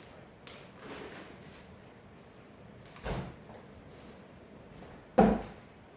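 Two dull thumps about two seconds apart, the second louder, over a faint room background.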